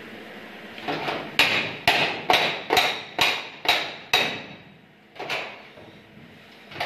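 Hammer striking steel at a steel almirah's door hinge: a run of about seven sharp, ringing metal blows, roughly two a second, then one more after a pause.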